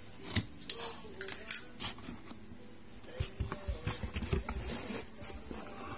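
Cardboard shipping box being opened by hand: tape pulling off and flaps bending, a series of sharp crackles and rustles in two bunches.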